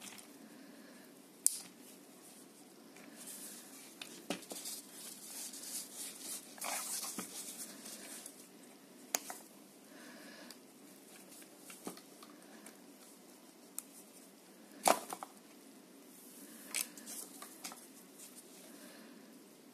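Plastic headband and strap clip of a watch-repair head magnifier handled by hand: scraping and rubbing for several seconds, with a handful of sharp plastic clicks as the clip is worked, the loudest about fifteen seconds in.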